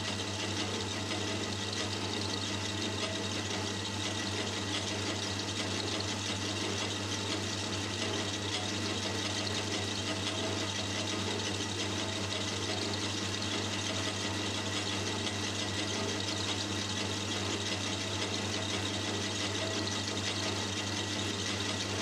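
Boxford metal lathe running steadily, a constant hum with a thin high whine, while a carbide insert tool takes a cut on a small aluminium bar.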